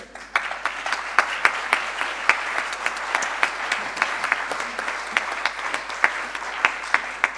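Audience applauding: the clapping starts just after the beginning and keeps up steadily.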